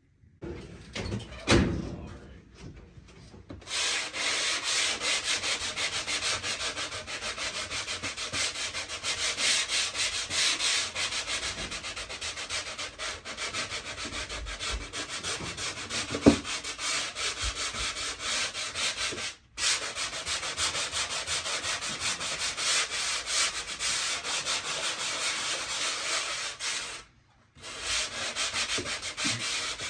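Dried drywall joint compound being sanded on a wall: rapid, continuous rubbing strokes of abrasive on the mud, starting about four seconds in and stopping briefly twice.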